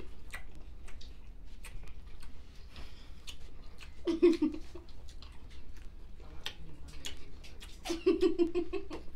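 Eating sounds: a run of small clicks and crackles from hands picking apart a seafood boil of crab legs and shrimp, with chewing. Short bursts of laughter come about four seconds in and again near the end.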